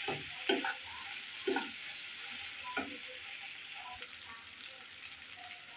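Vegetable strips sizzling in oil in a nonstick frying pan while a plastic spatula stirs and scrapes through them. Four louder stirring strokes fall in the first three seconds over the steady sizzle, which grows a little quieter toward the end.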